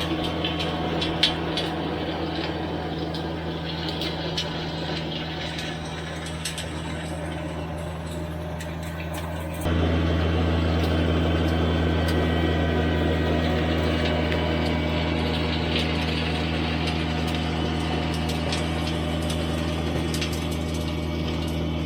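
Compact tractor's three-cylinder diesel running steadily under load while driving a 48-inch PTO rotary tiller through garden soil, with scattered sharp ticks over the engine. The level steps up abruptly about ten seconds in. The engine holds its speed without bogging down.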